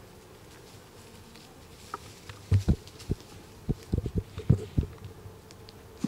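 Honeybees buzzing steadily around an opened hive. Through the middle comes a run of about nine low thumps and knocks as a frame glued in with propolis is worked loose.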